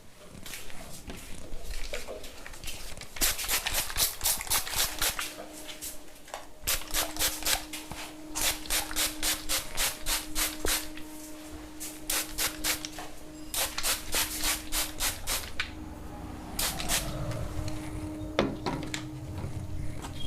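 Rapid rhythmic hand strokes of a head massage, rubbing and patting over the hair and scalp, about five or six strokes a second in runs of one to three seconds with short pauses between. A steady low hum runs behind from about five seconds in.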